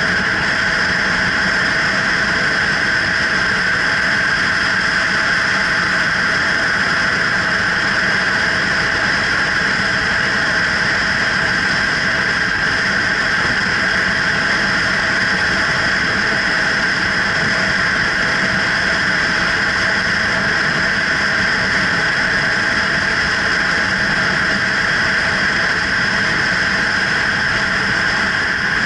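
Kawasaki Ninja 300's parallel-twin engine running at a steady speed while riding, with a steady rush of wind and road noise at the camera; no revving or gear changes.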